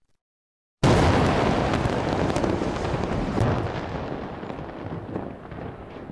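Demolition blast of a large office building: silence, then a sudden loud explosion about a second in, followed by a long rumble full of crackling debris that slowly fades over several seconds.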